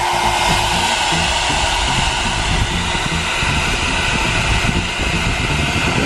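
Nova foldable hair dryer running steadily on its hot setting, its fan blowing a loud, even rush of air.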